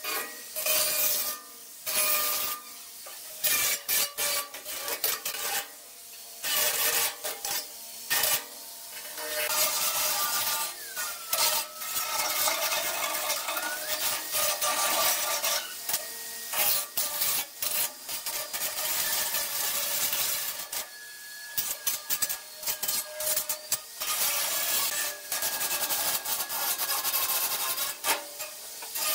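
Electric angle grinder grinding the cut edges of a steel oil drum, a harsh metal-on-abrasive rasp over the motor's steady whine. It comes in short on-off bursts at first, then in longer continuous passes.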